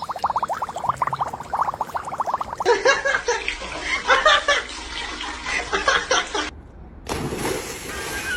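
Rapid gurgling and gulping of water, about eight strokes a second, as a dog bites at water, followed by splashing.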